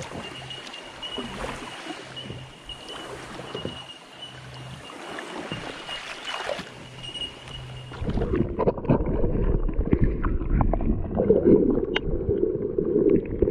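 Water sloshing and gurgling around a kayak hull, with a faint steady high whine. About eight seconds in it turns louder and duller, with wind buffeting the microphone and light knocks against the hull.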